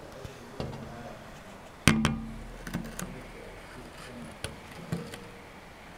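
A sharp knock about two seconds in that rings briefly at a low pitch, with a handful of lighter clicks and taps before and after it.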